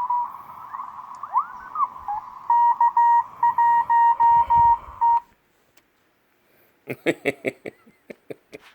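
Morse code: a single beeping tone keyed on and off in dots and dashes over a steady hiss, cutting off suddenly about five seconds in. After a short silence comes a quick run of short, sharp sounds near the end.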